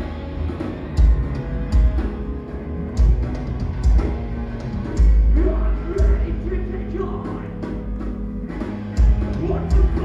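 A rock band playing live with drums and electric guitars, heavy low drum hits punching through the mix. A singer's voice comes in about halfway through.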